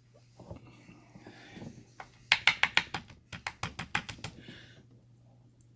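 A run of quick, light clicks and taps from small lock parts being handled while a padlock is disassembled and its pins are taken out, in two short bursts with a brief pause between. Soft rustling comes before the clicks, and a steady low hum runs underneath.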